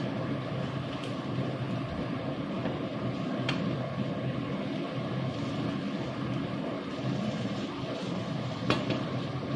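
Egg and onion omelette frying in a nonstick pan over a gas burner: a steady sizzling hiss, with the wooden spatula clicking against the pan about three and a half seconds in and again near the end.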